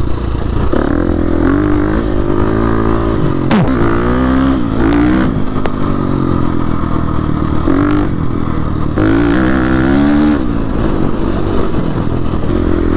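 2017 KTM 350 EXC-F's single-cylinder four-stroke engine revving up and down repeatedly as it is ridden over rough trail, with a sharp knock about three and a half seconds in.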